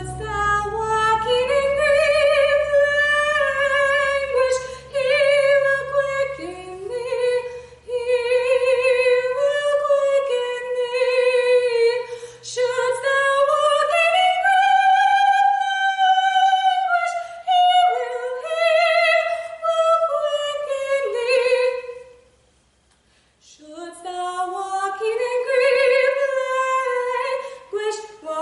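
A young woman singing solo and unaccompanied, in a high voice, in long sustained phrases, with a short pause for breath about two-thirds of the way through.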